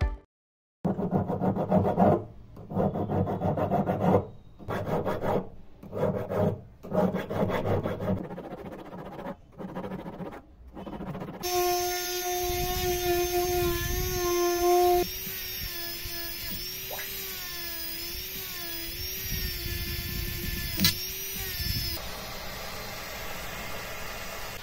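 Jeweller's hand tools scraping and rubbing on metal in uneven strokes, then a small rotary tool whining steadily and wavering in pitch as it works inside a metal ring. A gas torch flame hisses near the end.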